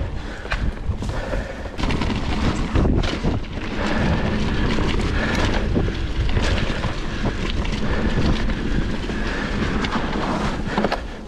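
Mountain bike riding fast down a leaf-covered forest trail: tyre noise over dry leaves and bumps, with frequent rattles and knocks from the bike, under wind noise on the microphone.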